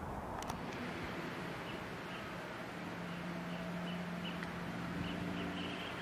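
Outdoor ambience: low background noise with a faint high chirp repeated a few times a second, and a low steady hum coming in about halfway through.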